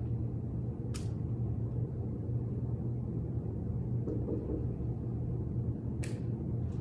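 Steady low hum with two brief hisses, one about a second in and one near the end.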